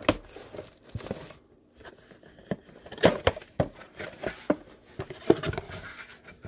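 Plastic shrink wrap crinkling and tearing as it is pulled off a cardboard trading-card box, then the box's perforated cardboard top being torn open, with irregular crackles and snaps.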